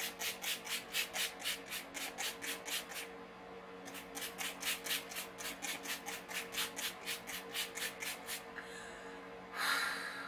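A pump bottle of makeup setting spray being spritzed onto the face: rapid, even spritzes of fine mist, about four a second, in two runs with a short pause about three seconds in, then a longer hiss near the end.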